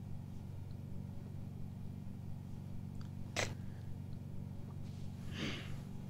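A person sniffing an old powder case to smell it: a short sharp sniff about three and a half seconds in, then a longer inhale near the end, over a steady low hum.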